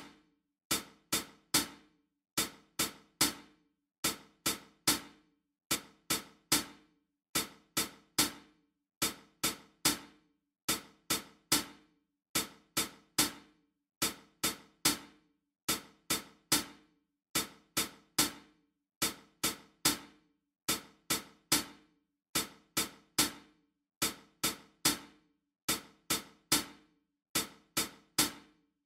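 A click-track percussion beat of sharp, dry strikes, played in groups of three followed by a one-beat rest, the group repeating a little under every two seconds. It is a rhythmic backing that taps out the three-beats-and-a-rest pattern for singing along.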